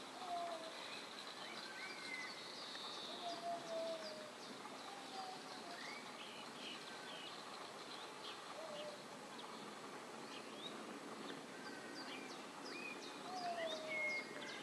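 Background birdsong from several small birds: scattered short high chirps and quick slurred notes, with a few short falling whistles every few seconds, over a steady background hiss.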